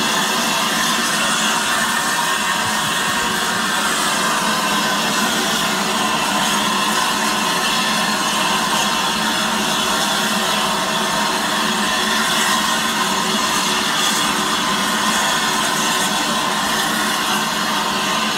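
Flying Scotsman, an LNER A3 Pacific steam locomotive, standing with steam escaping in a steady, loud hiss that does not change.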